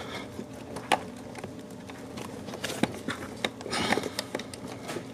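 Plastic interior trim panel and wiring being handled in a car's footwell: scattered sharp clicks and rustling, with a louder rustle about four seconds in as the kick panel is pushed back into place.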